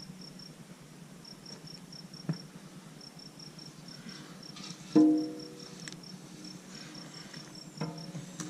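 Heavy steel backhoe bucket and linkage clanking as it is worked into position. There is a light knock, then about five seconds in a loud metallic clang that rings on for about a second, and another clank near the end. Crickets chirp steadily throughout in an even, rapid pulse.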